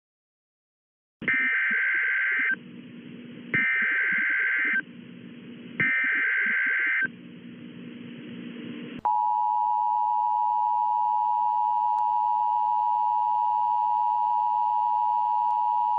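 Emergency Alert System tones: three bursts of the screeching SAME digital header, each a little over a second long with a low hum in the gaps, then from about nine seconds in the steady two-tone EAS attention signal. The tones announce an emergency bulletin, here a National Weather Service severe thunderstorm warning.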